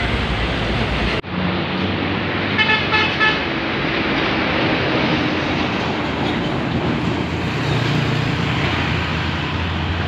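Tour bus's diesel engine running as the bus pulls away, with a multi-tone telolet horn sounding a quick series of musical toots about two and a half seconds in.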